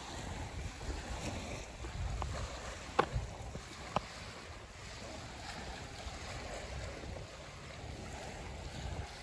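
Wind buffeting the microphone over the gentle lapping of small lake waves at the shore, with two sharp clicks about three and four seconds in.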